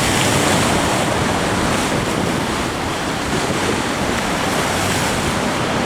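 Heavy ocean surf rushing around a rock jetty, a steady wash of water noise, with wind buffeting the microphone.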